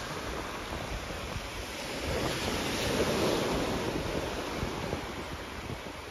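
Small waves breaking and washing up a sandy beach, swelling a little about three seconds in, with wind rumbling on the phone's microphone.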